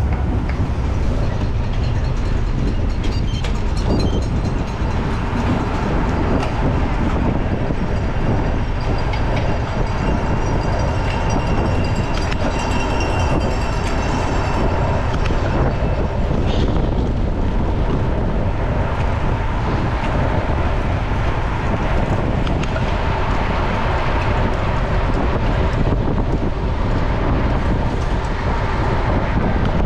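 Steady wind noise on the microphone over the loud rumble and clatter of a gravel bike's tyres and frame at race speed on a rough surface.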